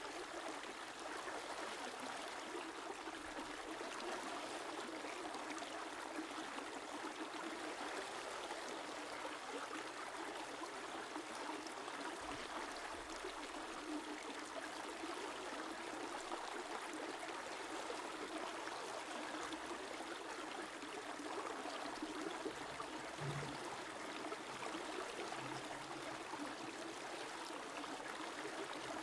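A stream running steadily over stones, an even trickling and burbling with no breaks.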